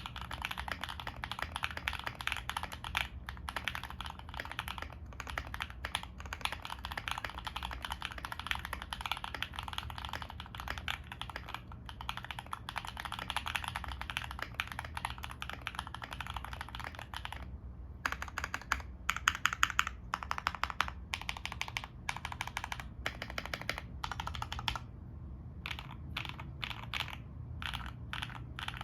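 Typing on a foamless 65% mechanical keyboard (CIY GAS67 with a carbon fibre plate, O-ring bump-on mount, lubed Bsun Raw switches and doubleshot ABS Cherry-profile keycaps): fast, steady clacking. About two-thirds of the way through, the typing gives way to separate runs of presses on the stabilized keys, such as the spacebar, with the loudest strokes just after the change.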